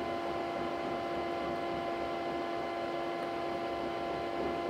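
Steady electrical hum of an induction cooktop running, several even tones held over a faint hiss.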